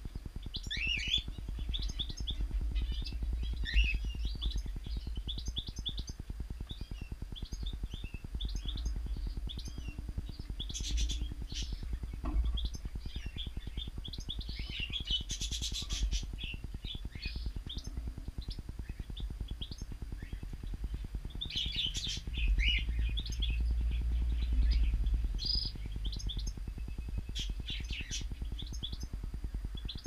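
Small aviary birds chirping and calling, a busy stream of short high chirps that comes in denser flurries now and then, over a steady low rumble that swells about two-thirds of the way through.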